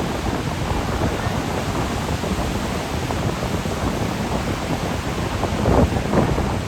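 Steady rush of ocean surf breaking on a beach, mixed with wind noise on the microphone, swelling briefly louder near the end.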